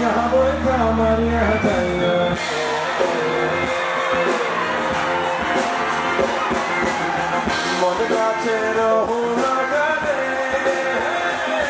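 Live band music with a male lead voice singing: electric bass, drums and keyboards under the melody, with a held low bass note in the first couple of seconds.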